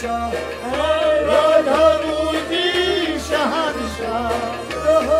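A man singing in full voice to harmonium accompaniment. His voice bends and wavers between notes over the harmonium's steady held notes.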